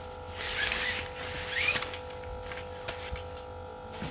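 Fishing gear being handled: two short rustling, rubbing sounds about half a second and a second and a half in, the second with a brief rising squeak, over a steady electrical hum.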